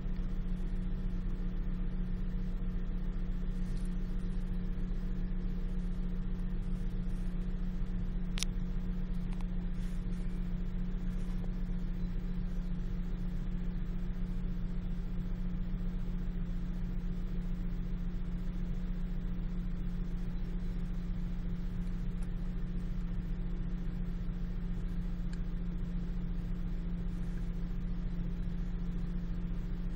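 Steady low hum with a faint whir that does not change in level, and one short sharp click about eight seconds in.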